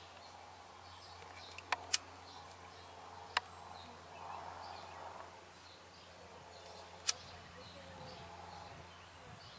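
Quiet outdoor background with faint bird chirps, broken by a few sharp clicks: two close together a little under two seconds in, one about three and a half seconds in and one about seven seconds in.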